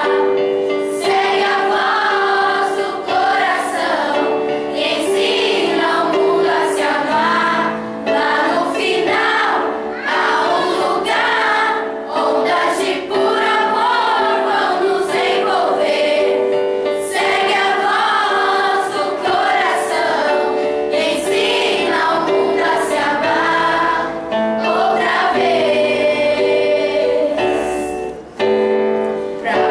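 A choir of teenage students singing together, mostly girls' voices, holding long notes under a moving melody, with a short break between phrases near the end.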